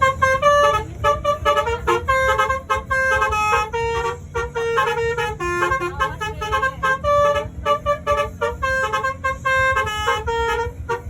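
Bus basuri (telolet) multi-tone air horn playing a rapid tune of short, stepped notes that changes pitch several times a second, over the low rumble of the bus.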